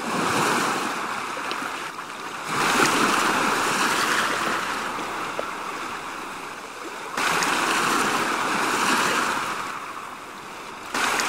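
Sea waves washing in a steady rush of surf, swelling suddenly about two and a half seconds in, again about seven seconds in and near the end, and easing off in between.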